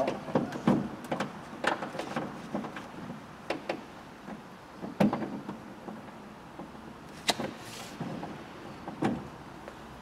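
Irregular clicks and knocks inside a Fiat 500 door shell as a hand works the exterior door handle and pulls its broken hinge piece free, the sharpest knock about five seconds in.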